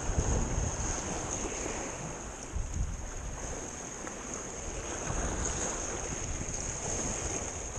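Sea waves washing and breaking against jetty rocks, with wind buffeting the microphone as a low rumble. A steady high-pitched hiss sits over it.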